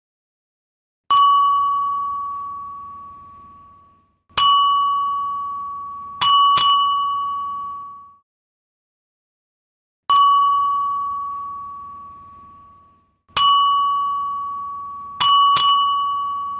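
Hotel front-desk service bell struck by hand, each tap giving a clear ding that fades over two to three seconds. Two single dings about three seconds apart are followed by a quick double ding, and the pattern comes twice.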